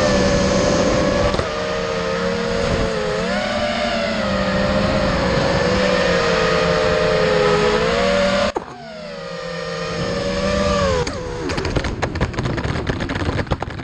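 FlyingCinema X24 FPV quadcopter's brushless motors and propellers whining, the pitch rising and falling with the throttle. About eight seconds in the throttle drops sharply and the whine sinks away, followed by a string of sharp clicks and knocks.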